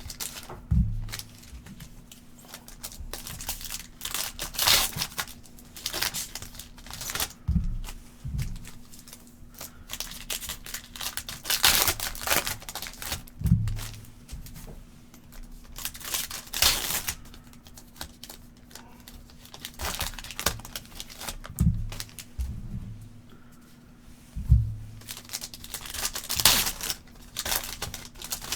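Plastic and foil card-pack wrapping being torn open and crinkled in repeated rustling bursts, with a few soft thuds on the table in between.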